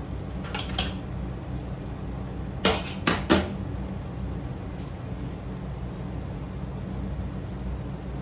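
A metal spatula is handled on a stainless-steel stovetop: two light clicks, then three sharp metallic knocks close together about three seconds in, over a steady low hum.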